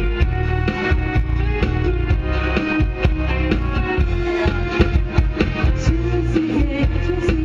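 Music with a steady beat and plucked, guitar-like instrumental parts, playing continuously.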